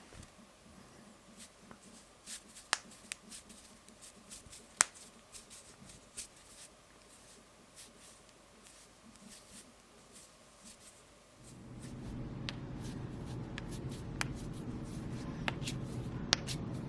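Knuckles cracking: a string of sharp pops and clicks, a couple far louder than the rest. About eleven seconds in, a steady low hum sets in and runs under the pops.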